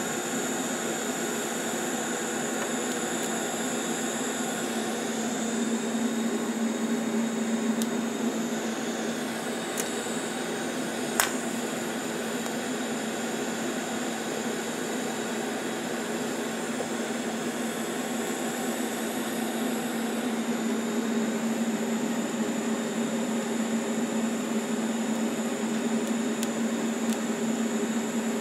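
TIG welding arc running steadily as a threaded drain bung is welded onto an oil pan, a continuous hiss with a steady hum under it. One sharp click about eleven seconds in.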